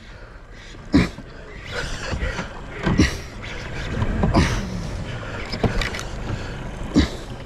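Noise on a small fishing boat: a low rumble with a sharp knock every second or two, five in all.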